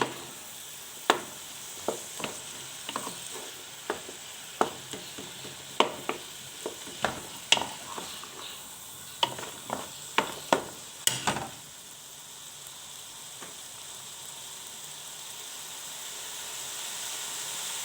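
Chicken pieces and vegetables sautéing in hot oil in a pan with a steady sizzle. For the first eleven seconds or so a utensil clicks and knocks against the pan as they are stirred. After that there is only the sizzle, growing a little louder toward the end.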